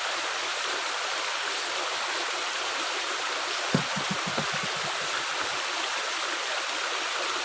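Water rushing steadily through a culvert. About halfway through there is one sharp knock, followed by a few soft low knocks.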